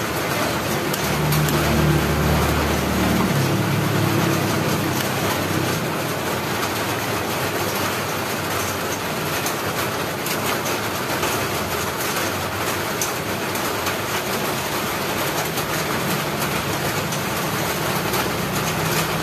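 A thick kalamay mixture being stirred in a wide metal wok over a gas burner: a spoon scraping and working the sticky mixture over a steady hiss, with a low hum about a second in that fades out a few seconds later.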